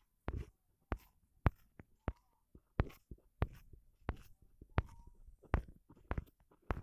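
A string of sharp, irregular clicks and taps, roughly two a second, with a few faint short squeaks between them.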